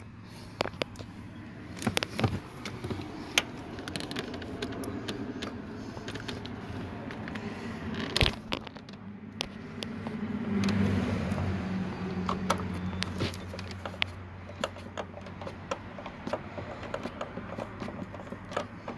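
Irregular clicks and scrapes of metal tools and bolts being handled as fender bolts are fitted to a car body, over a steady low hum.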